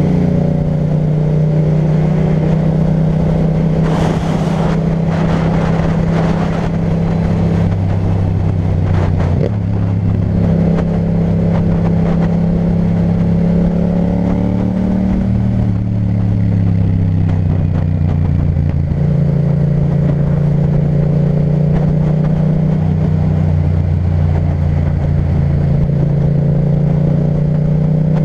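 Yamaha MT-07's parallel-twin engine running through an aftermarket Akrapovic titanium exhaust while riding. The engine note holds steady for stretches and steps or slides up and down in pitch several times, about every few seconds.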